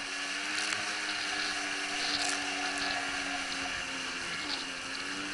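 Motorboat engine running at high revs with a steady whine, its pitch dipping briefly and recovering about four seconds in, over the rushing hiss of water and spray.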